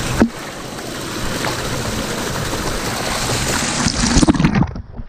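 Small mountain waterfall splashing and rushing over mossy rocks close to the microphone, a steady wash of water. A sharp knock comes about a quarter second in, and there are louder bumps around four seconds in.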